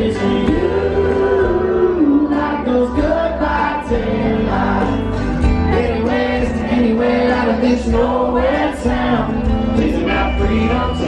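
Live country music heard from the crowd: a male singer over acoustic guitar and band, with the bass coming in right at the start.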